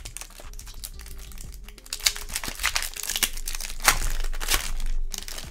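Shiny wrapper of a 2023-24 Upper Deck Synergy hockey card pack crinkling and tearing as it is pulled open by hand, getting louder about two seconds in.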